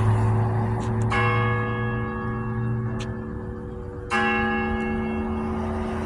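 Church bell tolling the noon hour, slow single strokes about three seconds apart, one about a second in and another about four seconds in, each ringing on and fading.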